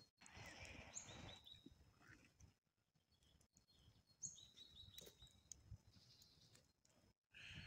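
Faint outdoor ambience of small birds chirping in short, quickly repeated notes. There is soft rustling early on as a person shifts and settles on the ground.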